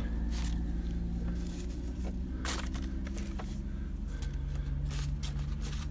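Old paper documents being handled, a few brief papery rustles as folded sheets and envelopes are moved, over a steady low hum.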